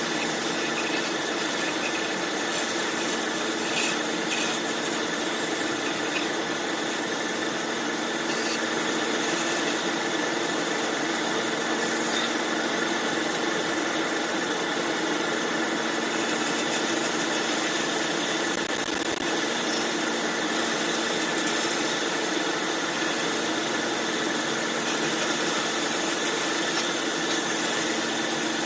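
Band saw machine running steadily, a constant mechanical drone with a faint high whine held throughout.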